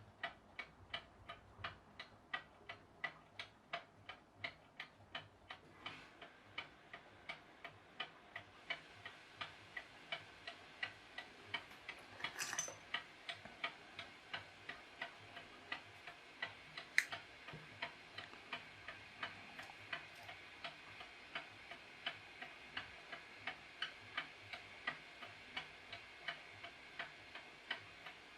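Mechanical clock, partly rebuilt with 3D-printed parts, ticking loudly and steadily at about two ticks a second. A short rustle about twelve seconds in and a single sharp click a few seconds later, the loudest sound, cut across the ticking.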